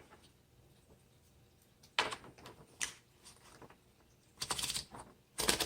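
1936 Corona Sterling typewriter being loaded with paper: a couple of sharp clicks, then runs of quick clicks near the end as the platen is turned to roll the sheet in.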